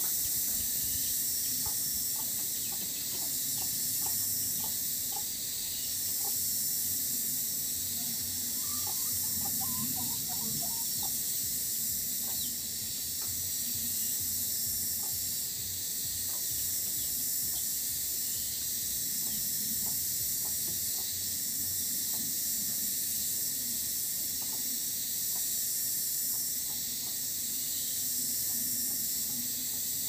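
Steady high hiss of outdoor ambience among trees that swells and eases slowly, with faint scattered ticks and a brief run of faint chirps about nine to eleven seconds in.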